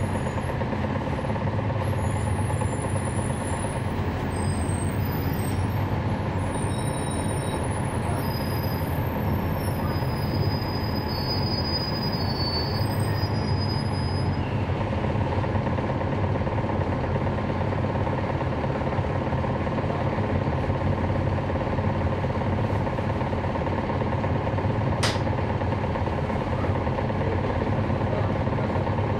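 Cabin sound of a 2011 NABI 416.15 transit bus, its Cummins ISL9 diesel engine and ZF Ecolife automatic transmission running steadily. A steady mid-pitched tone joins about halfway through, and there is one sharp click near the end.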